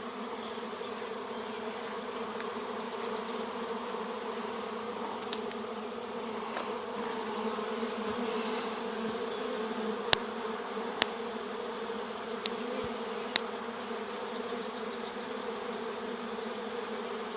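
A honeybee swarm in flight, a steady dense buzzing hum, with a few sharp clicks in the middle.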